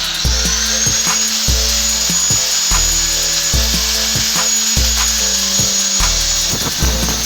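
Angle grinder running steadily against the edge of an iron piece, a high constant whine with a grinding hiss, over background music with a steady bass beat.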